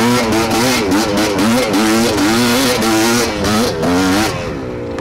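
GR7 250 two-stroke enduro motorcycle engine revving up and down in quick, uneven throttle bursts while pulling up a steep dirt hill. About four seconds in the throttle closes and the revs fall away to a steady, slowly sinking note.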